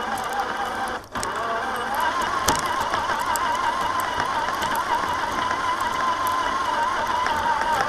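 Traxxas TRX-4's electric motor and gearbox whining as the crawler drives through snow, the pitch wavering with the throttle. It cuts out briefly about a second in, then comes back higher and holds steady.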